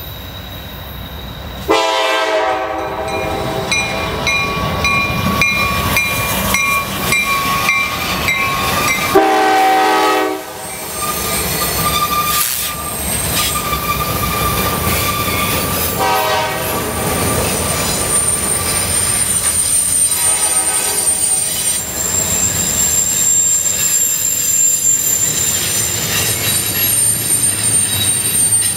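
CSX GE AC44CW diesel locomotive sounding its horn in several blasts as it passes: a sudden first blast about two seconds in, then more near the middle. The autorack cars behind it roll by on the curve with a steady rumble and a high, thin squeal of wheel flanges on the rail.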